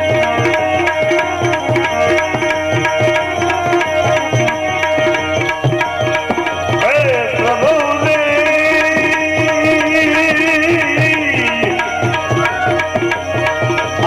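Instrumental interlude of a devotional bhajan: a hand drum keeps a steady beat under held melodic notes. A wavering melody line swoops in about seven seconds in and fades out around eleven seconds.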